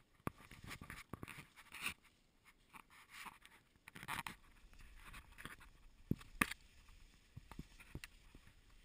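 Faint, irregular rustling and scraping of tall grass and leaves brushing past the body and camera while walking through dense vegetation, with a few sharp clicks.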